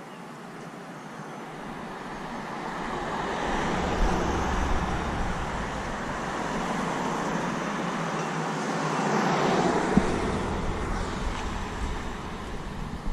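Road traffic: a car driving past on a residential street, its tyre and engine noise building over several seconds, peaking about ten seconds in and easing off as another vehicle approaches, with a single sharp knock at the peak.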